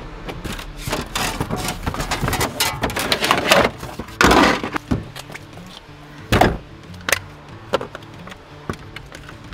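Clattering, scraping and sharp knocks of hands working in a BMW E46's boot, as the boot floor cover is lifted and a car battery is handled; the longest scrape comes about four seconds in and a heavy knock just past six seconds. Background music plays underneath.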